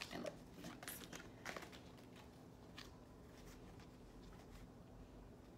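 Oracle cards being shuffled by hand: a few soft card clicks and slaps in the first second and a half and one more a little later, then near silence.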